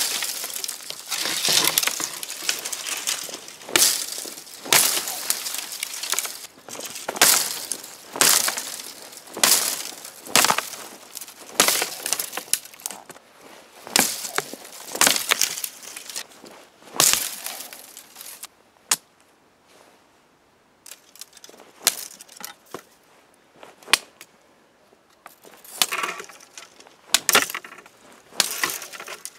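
Small parang from the Anika workshop chopping through thin shrub stems: crisp, sharp strikes about once a second. The chopping stops for several seconds about two thirds through, with only a few faint clicks, then a short run of strikes comes near the end.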